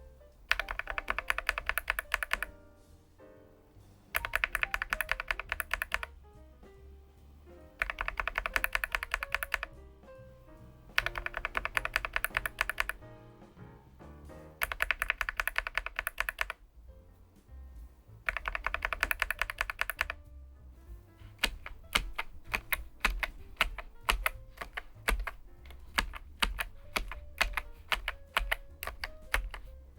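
Keychron K1 Max low-profile mechanical keyboard with Gateron low-profile switches being typed on. It plays as fast runs of keystrokes about two seconds long, separated by short pauses, and about twenty seconds in it changes to slower single keystrokes, about two a second.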